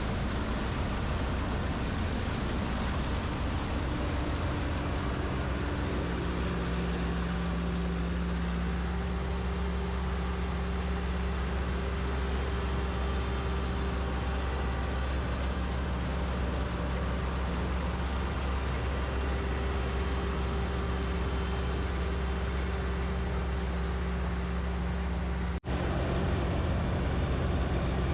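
A 102 HP PREET 4949 Maestro combine harvester's engine running steadily, a low even drone. It drops out for an instant near the end and comes back slightly louder.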